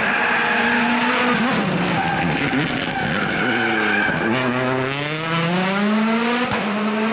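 Hyundai i20 Coupe WRC rally car's turbocharged 1.6-litre four-cylinder engine running hard through a corner. The note dips about four seconds in, then rises steadily as the car accelerates away, and falls back with an upshift near the end.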